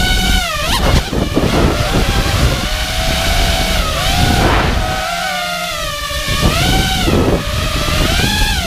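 Brushless motors and propellers of a 5-inch FPV quadcopter whining, the pitch rising and falling constantly with the throttle and dropping sharply three times, over a low rushing of wind on the microphone.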